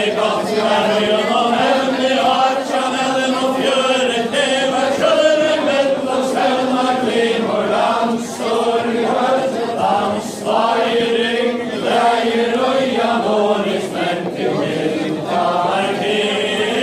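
A large crowd of men and women singing a Faroese chain-dance ballad (kvæði) together in unison: one chanted melody carried by many voices, with no instruments.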